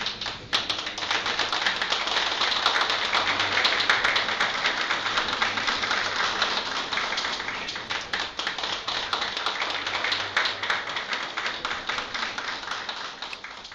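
A small group applauding: many separate hand claps that start about half a second in, keep up steadily and die away near the end.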